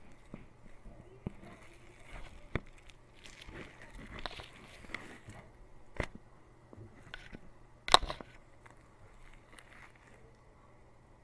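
Foam-bead slime (floam) in a plastic tub, close-miked, being poked and pressed with a stick: scattered small crackles and squishy clicks as the beads pop and shift, with one louder crunch about eight seconds in.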